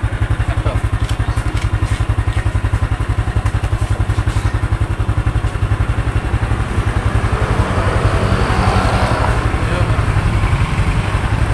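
An engine idling close by: a steady, rapid low pulsing that does not change. A broader hiss swells briefly around eight to nine seconds in.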